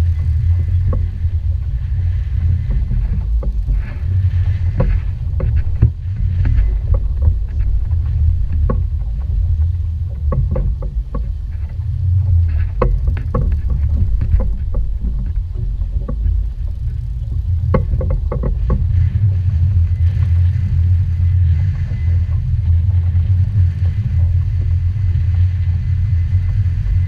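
Steady low rumble aboard a small outboard-powered boat on the water, with scattered short knocks and rattles, a cluster of them about 18 seconds in.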